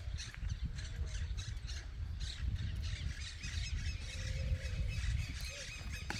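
Birds calling and chirping over and over in the surrounding trees, over a low, uneven rumble of wind on the microphone.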